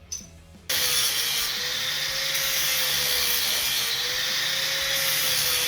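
Electric grinder running against metal. It starts abruptly about a second in and continues as a steady, loud grinding hiss with a slightly wavering motor whine.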